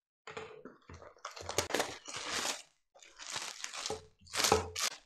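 Clear plastic packaging bag around a plush toy crinkling in a series of irregular bursts as it is handled.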